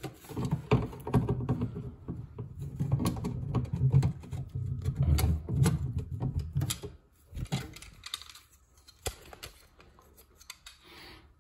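Hard plastic parts of a wall-hung toilet's in-wall flush mechanism clicking and rattling as they are handled and fitted back together, with handling rumble; after about seven seconds it turns quieter, with only a few scattered clicks.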